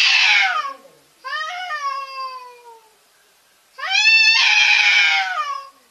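Cats yowling at each other in a fight standoff: a harsh screech at the start, a drawn-out yowl falling in pitch about a second in, and another long harsh screech near the end.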